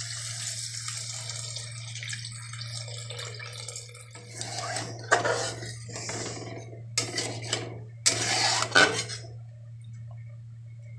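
Water hissing and sizzling as it hits the hot kadai over fried potatoes and spices. From about four seconds in, a metal spatula scrapes and knocks against the pan as the curry is stirred. A steady low hum runs underneath.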